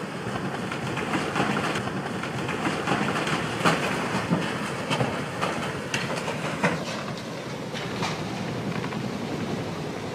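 Churning propeller wash from a cement carrier turning close in, with a string of sharp cracks and knocks, about half a dozen, as a small yacht's hull is crushed between the ship's stern and the quay.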